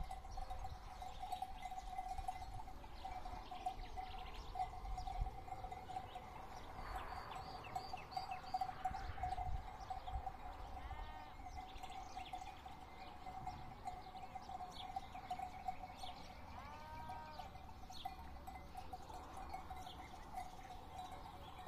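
Sheep bleating twice, with short bird chirps scattered through, over a steady unbroken tone.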